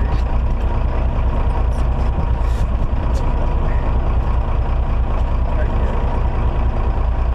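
Charter fishing boat's engine running steadily, a constant low rumble with the wash of wind and water over it.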